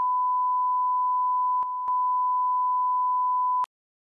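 A single steady electronic test tone, a pure beep at one pitch. It dips briefly in level about a second and a half in, then cuts off abruptly near the end.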